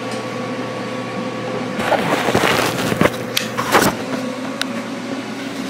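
Handling noise as the camera is picked up and swung around: about two seconds of rustling and several sharp knocks in the middle. A steady machine hum runs underneath.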